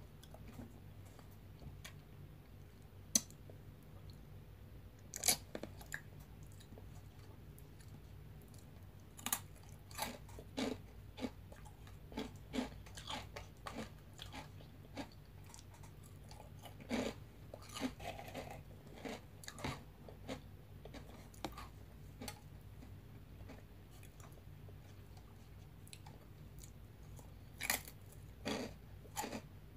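Crunchy veggie straw snacks being bitten and chewed close to the microphone: irregular crisp crunches, scattered at first, in busier clusters through the middle and again near the end.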